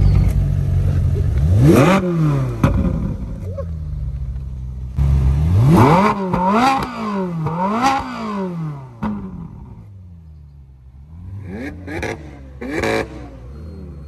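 Ferrari 458's V8 idling and being revved by its driver, with no load on the engine. It rises and falls once about two seconds in, then three blips in quick succession around the middle, then two shorter blips near the end.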